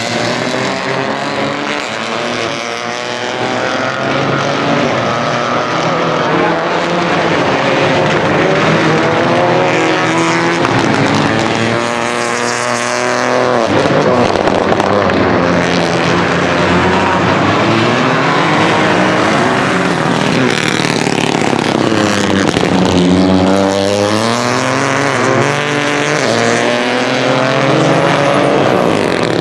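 Rally car engines running hard, the pitch climbing through the gears and dropping sharply whenever the driver lifts or shifts down, over and over as the cars pass.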